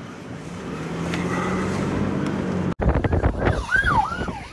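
Steady road and engine noise of a moving vehicle with a low hum. After an abrupt cut about two-thirds of the way in, an emergency-vehicle siren wails, its pitch rising and falling about twice a second, over wind noise.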